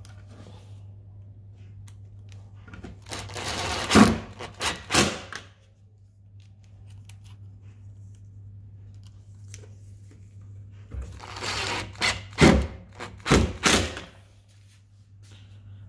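Tail-light retaining screws being driven back in with a screwdriving tool: two bursts of rough scraping and whirring, each ending in a few sharp knocks, over a steady low hum.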